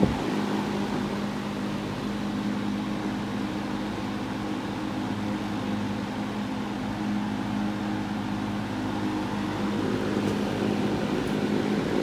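Vintage Berns Air King box fan running on high speed: a steady motor hum with the rush of air from the spinning blade. The fan has only been dusted out, not oiled, and runs on its first start after sitting unused for decades.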